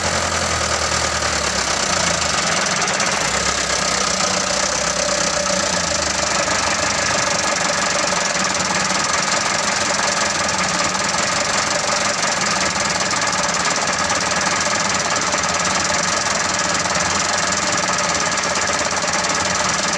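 Mitsubishi Canter 125 truck's diesel engine running steadily. The engine will not hold an idle, which the mechanic says is typically caused by a worn injection-pump plunger.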